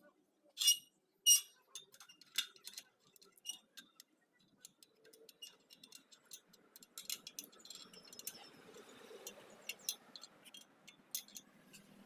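Metal clinks and taps from working on a motorcycle's wire-spoked wheel: two loud ringing metal strikes in the first second or so, then a run of lighter ticks and clicks.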